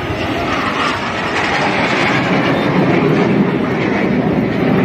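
Jet engines of two military jet aircraft flying overhead: a loud, steady roar that grows slowly louder.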